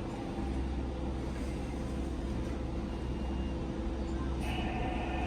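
Steady low machine hum from the tower crane's drives, heard in the operator's cab as the boom is lowered. About four and a half seconds in, the two-way radio keys open with a hiss.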